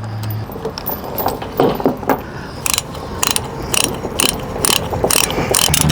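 Tie-down chain hardware being worked: a run of sharp metal clicks from a chain and its load binder. The clicks are sparse at first and come about two a second from about halfway on.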